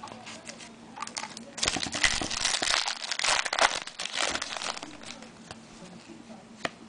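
A trading-card pack's wrapper crinkling and tearing open for about two and a half seconds, starting about a second and a half in, with a few light clicks of cards being handled before and after.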